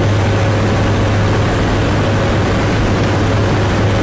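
Steady, loud cabin drone inside the cargo hold of a C-130J Super Hercules in flight. Its four Rolls-Royce AE 2100 turboprop engines and propellers give a strong low hum under an even rushing noise, unchanging throughout.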